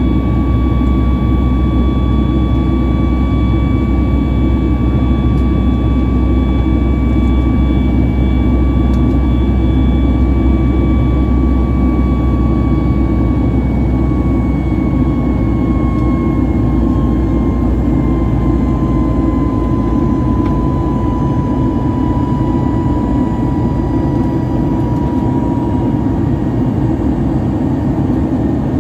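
Boeing 737 MAX 8's CFM LEAP-1B turbofan engines in climb, heard inside the cabin: a loud, steady rumble and rush with a whine on top. In the second half the whine slides slowly lower in pitch as the engine speed eases back, and the deepest rumble thins out.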